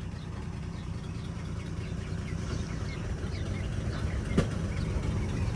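1952 Dodge Wayfarer's engine running with a low rumble that grows gradually louder. Faint high chirps repeat in the background, and a sharp click comes a little past four seconds in.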